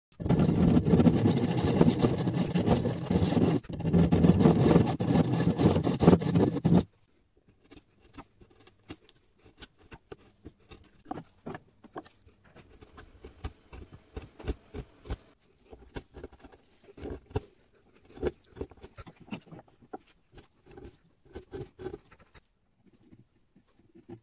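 Fine-toothed hand saw cutting through hardwood, a loud steady rasp for about seven seconds with a short break near four seconds. Then a chisel paring out a groove in the wood: a long run of short scrapes and clicks that stops a couple of seconds before the end.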